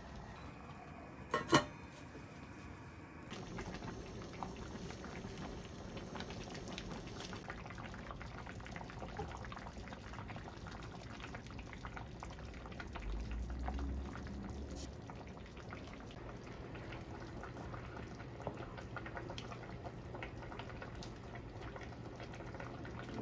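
Pot of cabbage-and-tomato 'witch soup' bubbling steadily as it boils, with a faint crackle of bubbles and two sharp clicks about a second and a half in.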